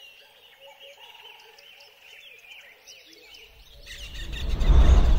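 Small birds chirping and twittering. About three and a half seconds in, a rising whoosh swells up under them and reaches its loudest near the end.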